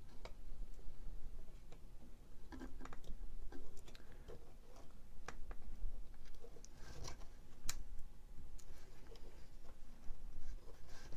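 Small plastic clicks and the rustle of wires as fingers push connectors onto the pins of a 3D printer's control board. The clicks come irregularly, a few at a time, over a low steady hum.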